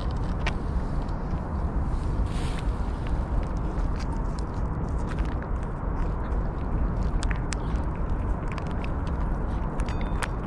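Cats eating from shallow metal dishes: small licking and chewing clicks over a steady low rumble.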